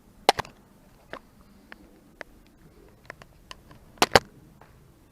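Parts and tools being handled during work on the engine: scattered sharp clicks and knocks. The loudest are two quick double knocks, one just after the start and one about four seconds in.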